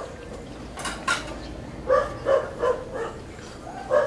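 A dog barking repeatedly in short calls, with three quick barks about two seconds in and another near the end. A brief rustle of leaves comes about a second in.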